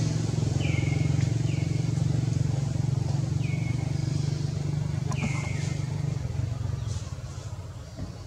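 A motor engine running with a steady low hum that fades away from about six and a half seconds in. Over it, a bird gives a short call that drops and then levels off, four times.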